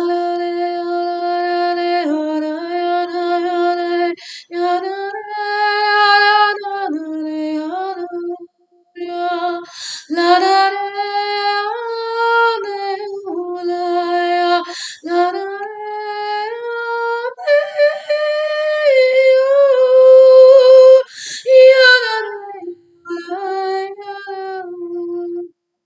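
A woman's voice toning wordless light language: long held sung notes that slide up and down between a few pitches, with short breaths between phrases.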